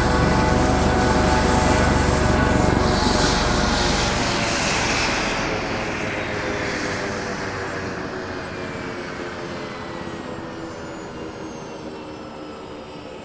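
Helicopter: its low rotor rumble and engine tones are strong at first. The rumble drops away about four seconds in, and the sound then fades steadily while the engine tones slowly fall in pitch.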